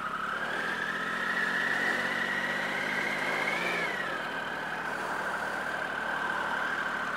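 Triumph Sprint ST 1050's three-cylinder engine running as the motorcycle is ridden at low speed, its steady whine rising gently, peaking about three and a half seconds in, then dropping back and holding.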